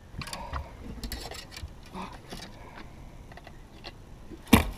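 Light clicks and knocks of people and fishing gear moving about on a boat deck, with one sharp knock near the end.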